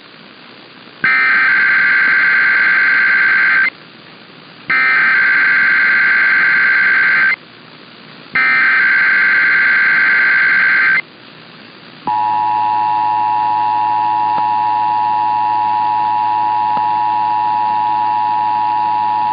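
Emergency Alert System activation: three bursts of SAME header data, a harsh digital warble each about two and a half seconds long with about a second of hiss between them. Then, about twelve seconds in, the steady two-tone EAS attention signal begins, opening a required monthly test.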